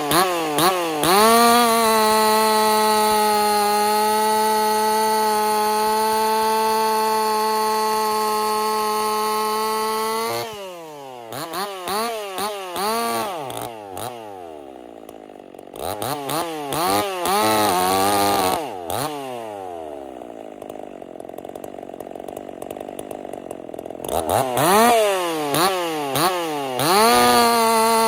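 Ported Husqvarna 50 two-stroke chainsaw running at full throttle with a steady pitch for about nine seconds, as in a cut through wood. It is then revved up and down several times with lower, quieter stretches between, and settles back to the steady full-throttle pitch near the end.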